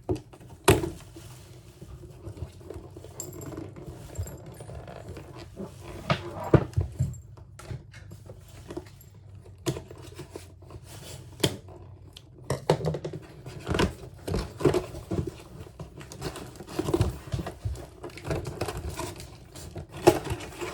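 Doll box being opened by hand: irregular rustling, tearing and knocking of cardboard and plastic packaging, with sharp clicks and thunks.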